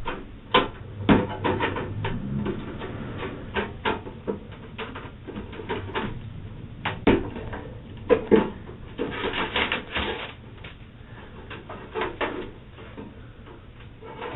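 Irregular knocks, clicks and rattles, several a second and uneven in loudness, over a faint low hum, with a thin, muffled top end.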